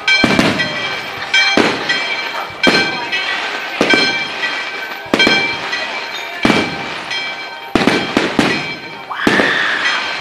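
Fireworks display: aerial shells bursting overhead in a steady series of loud bangs, about ten in all, roughly one every second, each trailing off in echo.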